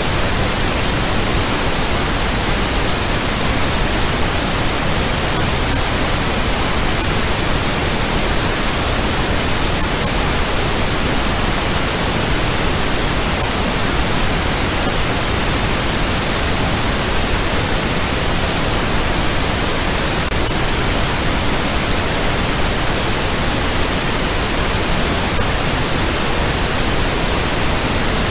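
Steady, loud synthetic noise hiss, spread evenly from deep to high pitches and unchanging throughout, the kind of noise track a morphic-field audio is played on.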